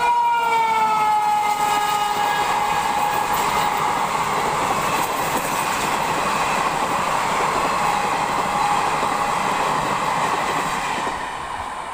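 WAP-7 electric locomotive's horn sounding as it passes, its pitch sliding down over the first two seconds, followed by the loud, steady rush and rattle of a fast passenger train's coaches going by, fading near the end.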